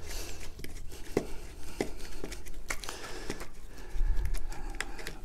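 Insulated screwdriver tightening the terminal screws of a plastic 13 A socket outlet: scattered small clicks and creaks of the driver turning in the screw heads and the plastic faceplate being handled, with a low bump about four seconds in as the driver is pressed down hard.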